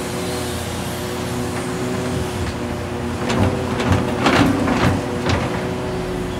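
Hitachi Zaxis 670LCR excavator's Isuzu diesel engine running steadily under hydraulic load. From about three seconds in, a run of heavy thuds and clatters as a bucketload of earth and rocks drops into a steel truck bed.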